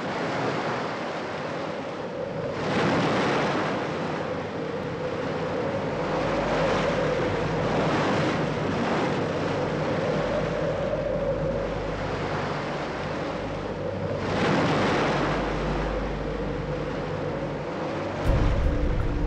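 Rough sea with wind: waves surging and breaking, with two bigger surges about three seconds in and again near fifteen seconds. A steady wavering tone runs underneath, and a deep low rumble comes in near the end.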